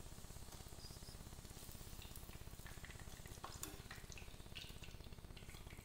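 Brinjal (eggplant) slices frying in hot oil in a small kadai: a faint steady sizzle with scattered small pops, over a low steady hum.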